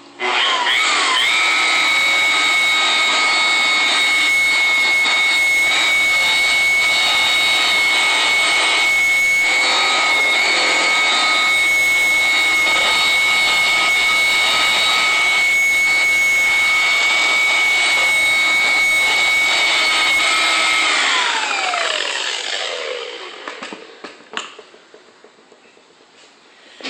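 Electric power tool motor spinning up at once and running at a steady high whine for about twenty seconds, then winding down with falling pitch as it coasts to a stop.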